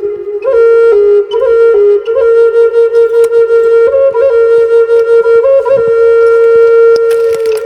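A flute playing a slow melody of held notes within a narrow range, with quick flicks of ornament between the notes and one long held note in the second half.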